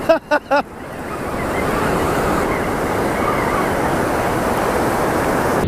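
Ocean surf breaking and washing up the beach, a steady rush that swells over the first second or two and then holds loud.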